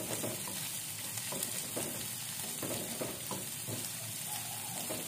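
Sliced shallots, garlic, chilies, salam leaves and galangal sizzling in a little oil in a nonstick wok, stirred with a spatula, whose strokes make frequent short scrapes and taps over the steady sizzle.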